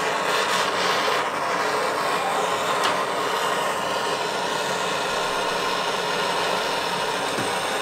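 Handheld gas torch burning with a steady hiss while its flame heats an aluminium engine case half, so that the chilled main bearings will drop in.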